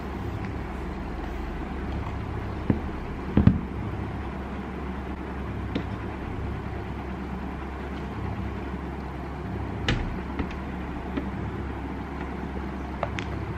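Light taps and knocks from a laptop being handled and set down on a desk, a few separate clicks with the loudest knock about three seconds in, over a steady low hum.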